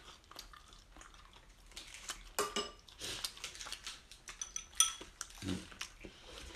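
Chopsticks clicking and scraping on a tabletop grill pan and dishes: a string of small clicks, with two sharper ringing clinks, one about two and a half seconds in and one near five seconds.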